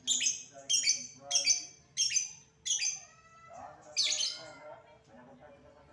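Caged lovebird calling: five short, harsh, high chirps at a steady beat about two-thirds of a second apart, then a longer call about four seconds in.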